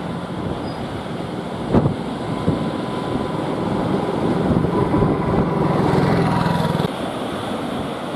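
A steady engine drone over wind and surf noise, loudest from about four and a half to seven seconds in. A single thump comes just under two seconds in.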